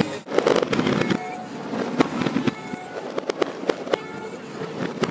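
Aerial fireworks bursting overhead: a rapid run of sharp pops and crackles, with music playing underneath.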